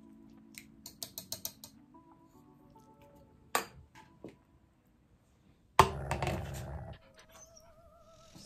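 Soft background music with sustained tones, over a wire balloon whisk ticking against a stainless steel bowl in a quick run of clicks about a second in. Two sharp knocks follow a little later, and a louder clatter about six seconds in lasts about a second.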